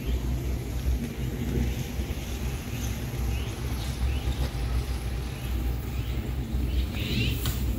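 Outdoor ambience: a steady low rumble, with faint short chirps repeating about once a second from about three seconds in.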